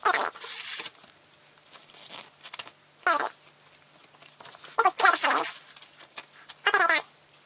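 Paper and packaging crinkling while instruction manuals are handled, with a bird giving short warbling calls about three times, near 3, 5 and 7 seconds in.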